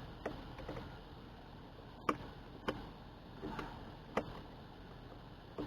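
Scattered light clicks and taps of hand tools against metal, about eight of them at irregular spacing, as a wrench is worked onto the brass fitting of an OMC Cobra lower shift cable to tighten it.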